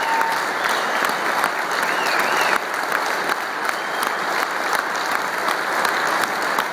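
Large audience clapping steadily in sustained applause.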